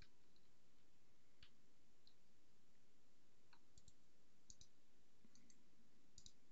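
Computer keyboard keystrokes: scattered, irregular key clicks, some in quick pairs, as a username and password are typed.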